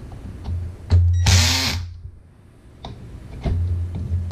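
Cordless drill/driver running in two short bursts, a run of under a second about a second in and another near the end, spinning up and down each time as it drives screws on the oven's wiring terminals. A few light clicks come between the runs.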